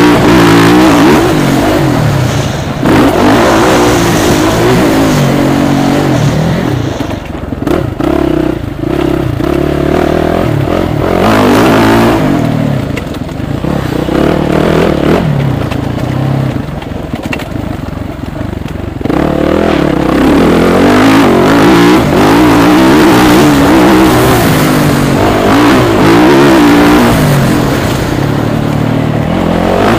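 Motocross motorcycle engine heard from the rider's onboard camera, revving up and down as the bike rides a dirt track. The throttle backs off twice for a few seconds, about a quarter and about halfway through, then the engine revs hard again.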